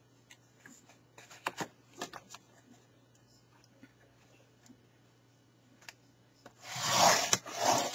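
Cardstock being handled on a scoring board: scattered light taps and scuffs, then about a second of loud scratchy rustling near the end as the sheet is scraped or slid across the board. A faint steady low hum sits underneath.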